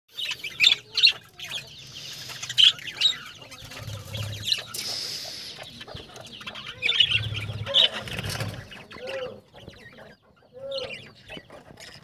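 Budgerigars chirping in many short, sharp calls, with a few low bumps and rustles from handling or wing movement about four and seven seconds in.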